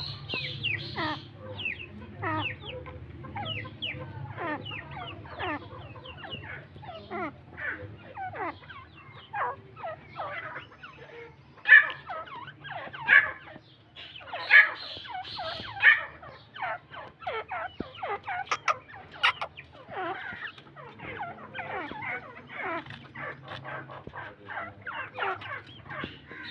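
Francolin (teetar) calling: a dense run of short calls that slide downward in pitch, with a few louder calls in the middle.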